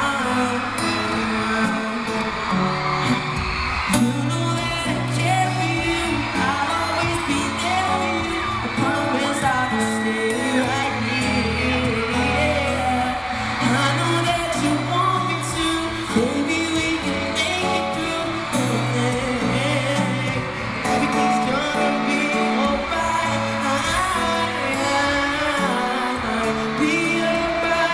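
Live pop song played through an arena sound system: a male singer sings over steady instrumental backing, heard from the audience with the hall's echo.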